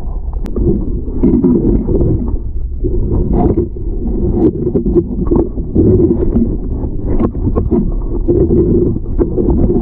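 Muffled underwater sound heard through a submerged camera: a steady low rumble of water moving and the swimmer's movement, with many small irregular clicks and knocks.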